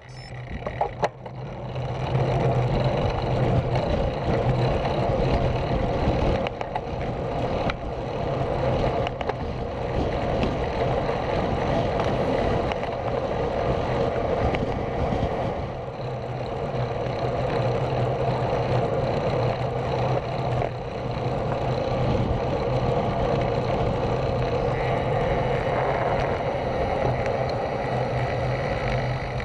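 Steady wind rush and road rumble on a bicycle-mounted camera as the bike rides along a road, rising about two seconds in and holding level.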